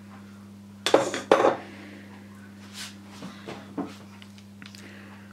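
Kitchen utensils clanking against a stainless-steel mixing bowl: two sharp, ringing clanks about a second in, then a few lighter knocks as a silicone spatula starts folding batter in the bowl.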